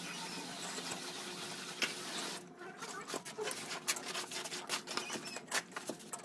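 Irregular clicks and scrapes of masonry hand tools at work: a shovel scraping mortar out of a metal basin and a steel pipe knocking against the wall's upright rebar. The clicks come thicker from about a third of the way in.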